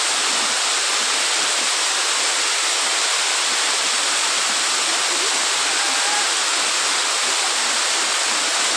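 Waterfall: a steady, loud rush of falling water, mostly hiss with little deep rumble.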